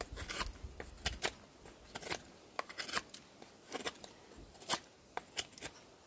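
SOG Tech Bowie knife slicing into wood in short strokes: a string of sharp, irregular scrapes and clicks, roughly one or two a second.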